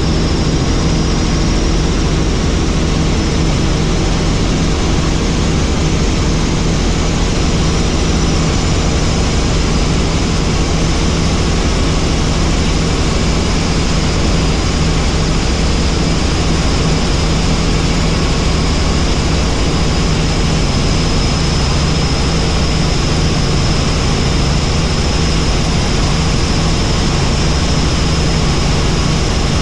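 Helicopter in steady flight: engine and rotor running loud and unchanging, with a thin steady high whine above the low rumble.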